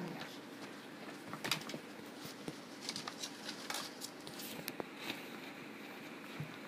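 Two puppies scuffling at play, making scattered light taps, scratches and clicks of paws and claws throughout.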